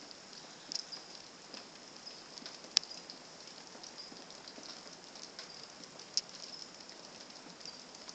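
Faint irregular patter of light ticks over a soft high hiss, with one sharp click a little under three seconds in.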